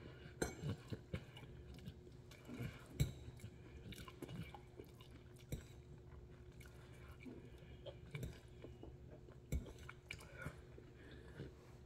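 Close-up chewing and slurping of noodles with mixed vegetables, with a few sharp clicks of a metal fork against the plate.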